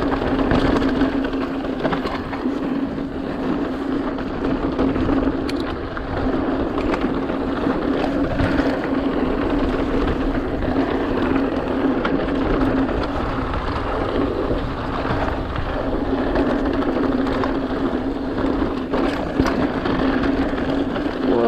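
Mountain bike riding down a dirt trail: tyre noise, clicks and rattles from the bike over rough ground, and wind on the microphone, with a steady buzz throughout.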